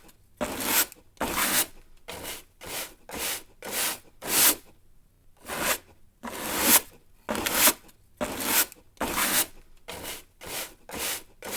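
Old-style straw broom sweeping in short, brisk strokes, about fifteen of them, each swelling and then stopping sharply, with a brief pause a little before the middle.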